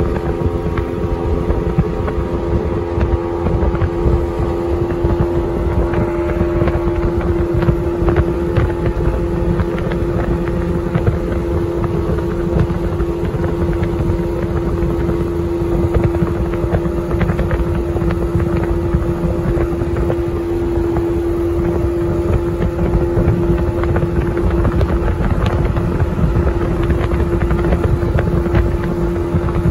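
Small speedboat's outboard motor running at a steady cruising speed, a constant droning tone, with wind buffeting the microphone.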